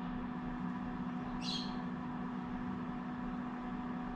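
Six-week-old lovebird giving one short, high chirp about a second and a half in, over a steady background hum.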